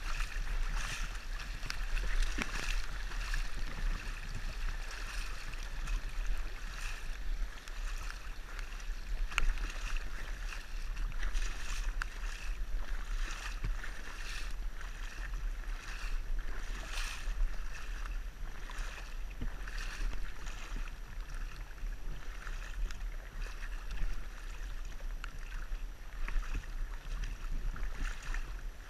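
Shallow creek water rushing and splashing around a camera held right at the water's surface, with frequent small splashes and knocks over a steady low rumble.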